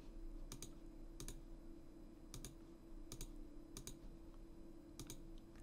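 Faint, scattered clicks of a computer mouse and keyboard, about eight over several seconds, some in quick pairs, over a steady faint hum.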